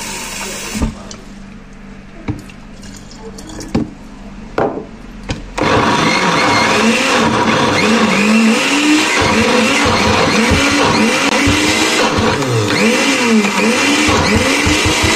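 Countertop smoothie blender switched on about five and a half seconds in after a few knocks and clicks, then running hard through a thick mixture of nuts and water, its motor pitch repeatedly dipping and rising under the load. The added water is turning the mixture to a mush.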